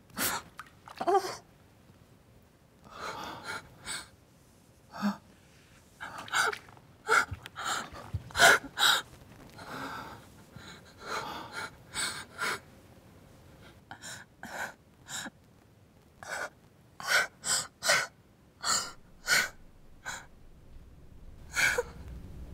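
A woman gasping and breathing raggedly, in many short, sharp bursts at irregular intervals.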